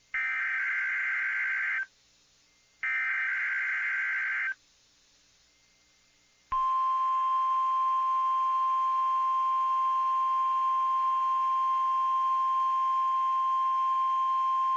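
NOAA Weather Radio alert for a test tornado warning: two bursts of buzzing SAME header data tones, then after a two-second gap the single steady 1050 Hz warning alarm tone, held without a break.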